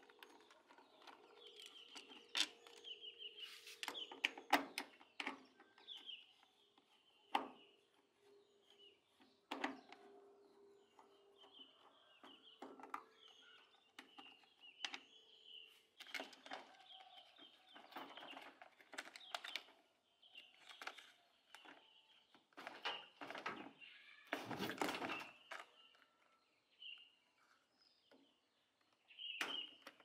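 Scattered clicks, taps and short rattles of a hand screwdriver and plastic parts as a top-loading washing machine's casing is taken apart, with a longer, louder rattle near the end. Birds chirp faintly in the background.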